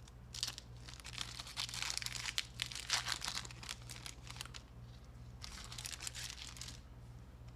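Trading card pack wrapper being torn open and crinkled, in two spells of dense crackling. A steady low hum runs underneath.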